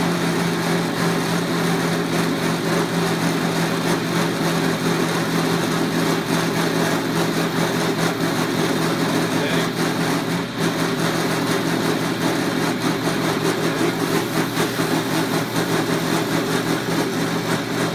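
Milling machine running steadily while milling a pinewood car body, a constant motor hum with cutting noise over it.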